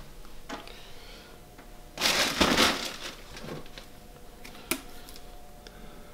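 Rustling and handling of food packages while rummaging through a kitchen cupboard: a loud rustle lasting about a second, two seconds in, and a single sharp knock later, over a faint steady hum.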